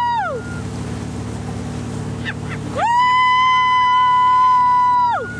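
A person screaming in long, high, steady held notes: one slides down in pitch and stops right at the start, and another rises about three seconds in, holds for a couple of seconds and slides down again near the end. Underneath runs the steady drone of the towing motorboat and the rush of its wake.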